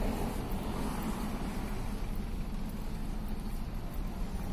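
Steady road traffic noise from cars and buses on the street, louder in the first second and a half as a vehicle goes by.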